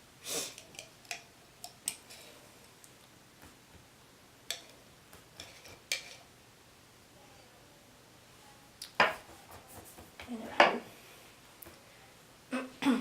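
Scattered light clicks and small knocks of handling as glue is brushed on, with two louder knocks about nine and ten and a half seconds in.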